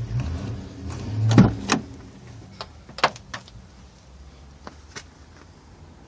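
Hyundai 5-ton truck's cab door being handled and opened: a rumbling clunk about a second and a half in, a second knock just after, then a few light clicks and taps.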